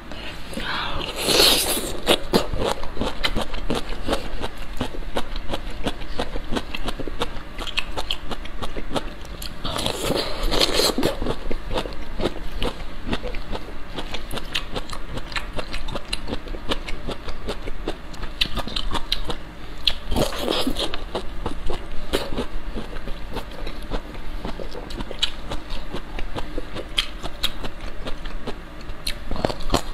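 Close-miked biting and chewing of crisp pickled bamboo shoots: a dense run of wet crunching crackles, with a few louder bursts about a second in, near the middle and about two-thirds through.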